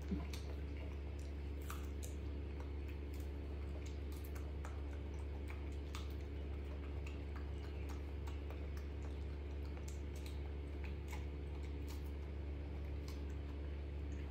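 Small irregular clicks and wet smacks of a monkey chewing soft fruit, over a steady low hum.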